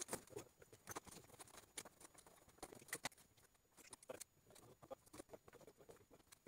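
Faint, irregular light clicks and taps from the metal frame tubes and hull skin of a Salyut-2 folding kayak being handled and fitted together during assembly.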